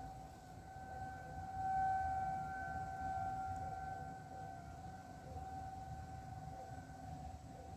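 Tornado warning siren sounding one steady tone during its monthly test. It swells louder about two seconds in, then slowly fades.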